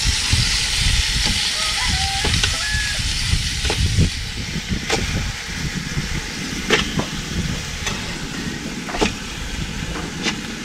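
Live land crabs dropped one at a time into a hot pot of sautéing garlic, ginger and onion. The sizzle dies down after the first few seconds, and a sharp clack of crab shell on the metal pot comes every second or two, over a steady low rumble.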